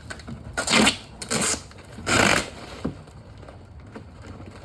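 Rustling and scraping of the bumper's shipping packaging being handled, in three short bursts over the first couple of seconds, followed by a faint click.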